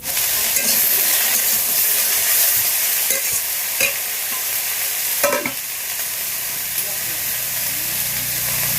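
Food frying in hot oil in a pan: a loud, steady sizzle that starts suddenly, with a few faint ticks over it.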